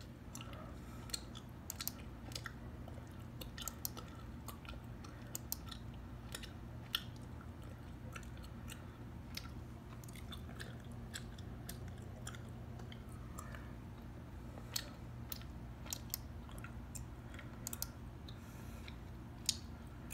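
Gum chewed close to the microphone: an irregular run of sharp, wet clicks and smacks over a steady low hum.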